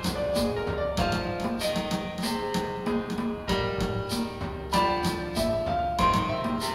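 Viola playing a melody of held notes that step from pitch to pitch, over an accompaniment with piano-like chords and a steady beat of about two strokes a second.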